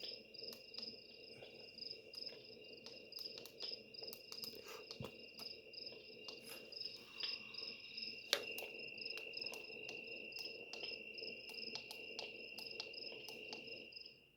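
Recorded cricket chirping played as a nature sound from a wake-up light alarm clock's built-in speaker: a faint, steady, pulsing high trill with scattered clicks. It cuts off near the end.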